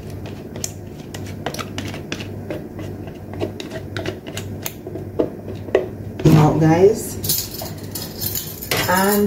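Light clicks and taps of kitchen utensils against a bowl over a steady low hum. About six seconds in, and again near the end, come two louder, pitched, wavering sounds.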